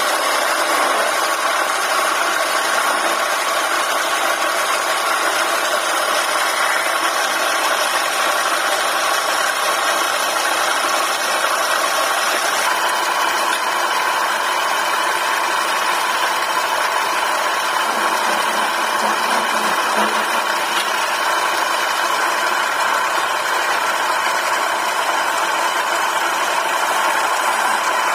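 Wood lathe running steadily while a hand gouge and chisel cut into the spinning wooden spindle, peeling off shavings. There is a slight shift in the tone about twelve seconds in.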